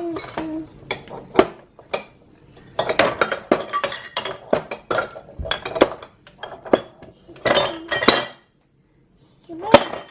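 Hard kitchen items clattering and clinking against one another as they are handled: a quick, irregular run of sharp knocks, then a short pause and one last loud clink near the end.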